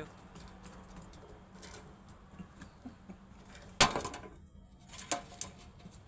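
Pigeons scuffling at a hand of seeds: light pecking taps and rustling, then a sudden loud flurry of wing flaps almost four seconds in and two short flaps about a second later as they squabble.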